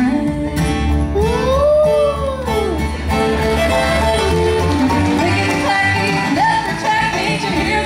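Bluegrass band playing an instrumental passage with banjo and guitar. About a second in, a sliding note rises and falls back in one long arch.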